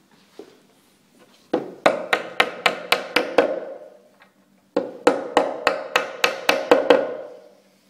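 Hammer lightly tapping plastic wall plugs into drilled holes in a painted stand panel: two runs of quick strikes, about four a second, each strike ringing briefly, with a pause of about a second between the runs.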